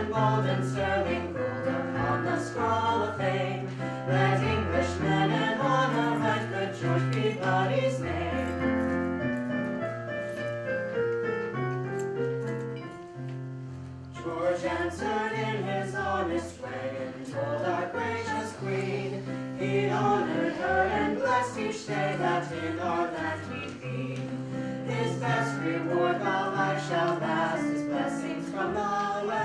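Live song music: keyboard accompaniment with sustained bass notes under a moving melody, the loudness dipping briefly about halfway through.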